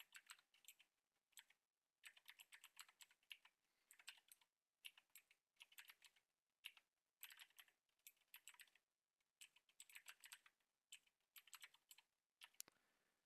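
Faint typing on a computer keyboard: runs of quick key clicks with short pauses between them.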